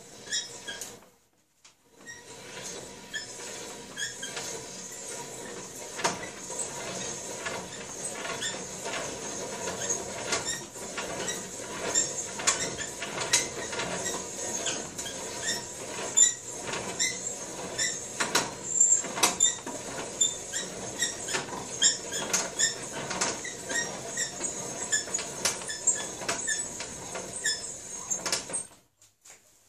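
Hand-turned reamer cutting inside a rifle barrel: a continuous scraping with frequent high squeaks and ticks. It starts about two seconds in and stops shortly before the end.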